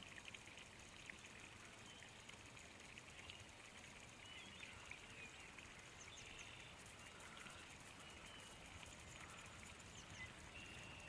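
Near silence: faint outdoor ambience with a few short, faint high chirps.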